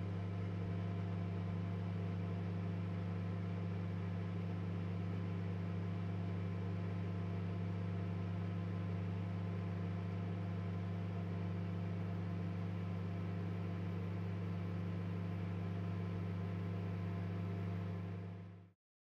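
Microwave oven running: a steady electrical hum with a whirring fan, unchanging, fading out near the end.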